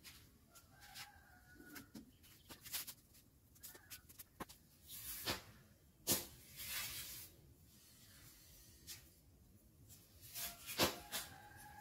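Small wood fire crackling, with irregular sharp pops, as corn cobs roast on it. Dry corn husks rustle as they are dropped onto the fire and a cob is handled, loudest about five to seven seconds in and again near the end.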